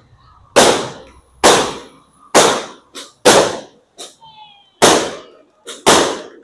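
Fireworks exploding in the air: six sharp bangs about a second apart, each trailing off in an echo, with a few smaller pops in between.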